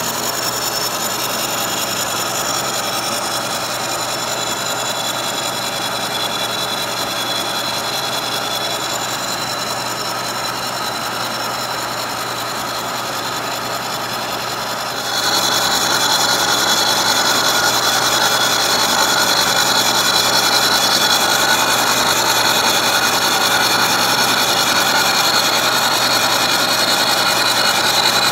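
Kearney & Trecker milling machine's carbide-insert face mill at 246 RPM cutting a cast iron casting on a light 10-thousandths power-fed pass, a steady machining sound, cutting cleanly without chatter. About halfway through it steps up louder and brighter.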